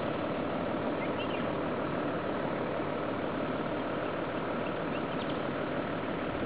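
Steady outdoor background hiss, with a few faint high chirps about a second in and again near five seconds.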